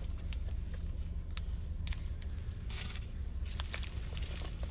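Plastic wrapper of a rice ball crinkling in a toddler's hands in short scattered crackles as she eats, over a steady low hum in the car cabin.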